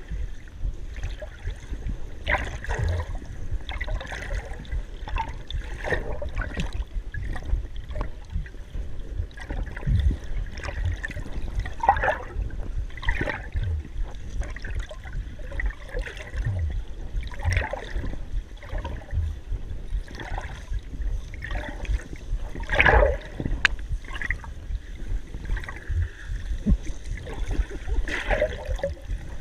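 Water heard through a submerged camera: muffled gurgling and sloshing over a steady low rumble, with scattered dull knocks and swishes, the loudest about twenty-three seconds in.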